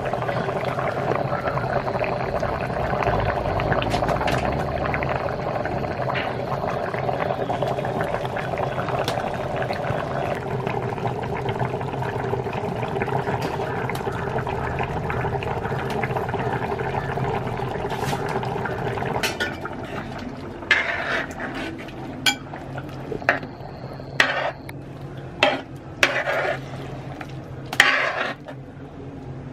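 Thick curry boiling hard in a large open metal pot, a steady bubbling with many small pops as it reduces. About two-thirds of the way in the bubbling quietens, and a metal ladle stirs the pot, scraping and clinking against it several times.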